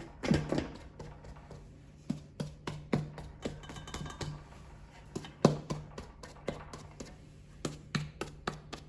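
Hands punching down risen bread dough in a bowl: irregular taps and soft thumps, a few louder knocks, over a steady low hum.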